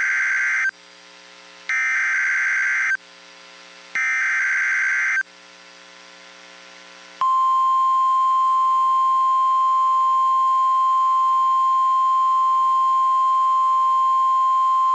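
Emergency Alert System activation for a severe thunderstorm warning: three short buzzy bursts of SAME header data, each about a second long and a second or so apart, then, about seven seconds in, a long steady single-pitch attention tone.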